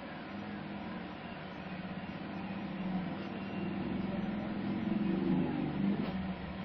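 A low, steady engine hum that grows gradually louder.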